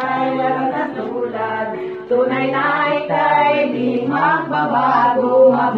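A group of voices, women and children among them, singing a song together over a low accompaniment of held bass notes.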